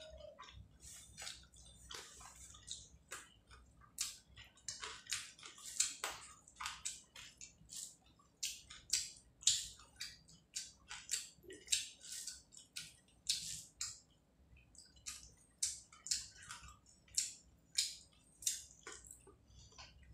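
Close-miked eating sounds: fingers working rice into prawn curry on a plate, and chewing. It comes as a string of short, irregular clicks and crackles, about two or three a second.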